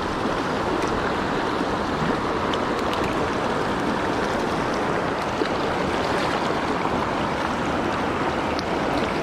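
Fast mountain creek rushing over rocks: a steady, even rush of water.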